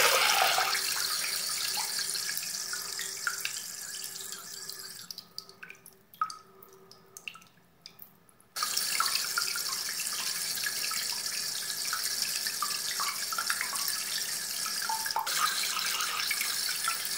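Steady rush of running water. It fades down over the first few seconds and is nearly gone for about three seconds, with only a few faint short sounds, then comes back abruptly about halfway through and runs on steadily.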